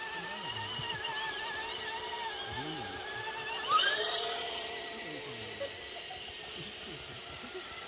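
Electric motor and gearbox whine of an RC scale crawler truck, wavering in pitch with the throttle, with a quick rising whine a little over halfway through as it speeds up, then running at a lower pitch.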